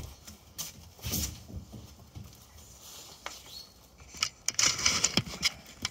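Handling noise from the camera: scattered clicks and knocks, then a denser burst of rustling and scraping about four seconds in as it is gripped and moved.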